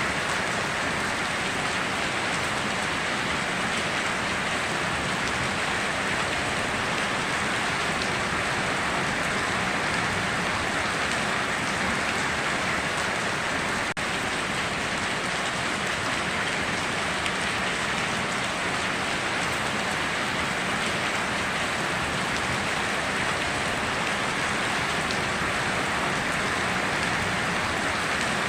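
Steady heavy rain falling and pattering on surfaces, an even continuous hiss with no breaks or thunder claps.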